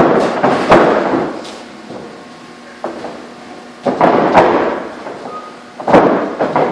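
Boxing gloves landing punches in sparring: sharp thuds and slaps in quick clusters in the first second, again around four seconds and near six seconds, each with a short echo.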